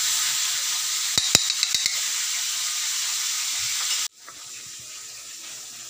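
A few light metal clicks, a spoon tapping against an aluminium wok, between one and two seconds in, over a steady hiss that drops abruptly about four seconds in.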